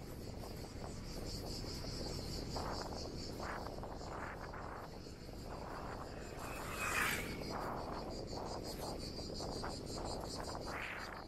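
Insects chirring steadily with a fast pulsing rhythm, over a low rumble of wind and riding noise that rises and falls. A brief louder noise cuts in about seven seconds in.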